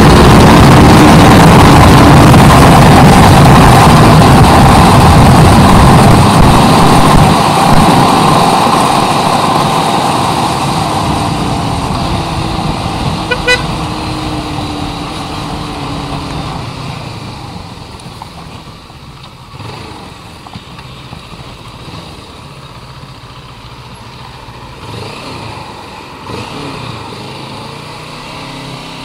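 Motorcycle riding, with the engine running and wind rushing over a chest-mounted camera's microphone. The rush grows steadily quieter from about a quarter of the way in. A short beep sounds about halfway through.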